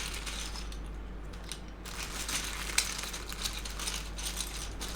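Loose PBT keycaps clicking and clattering against each other as they are handled, many small irregular clicks with one sharper click about three seconds in.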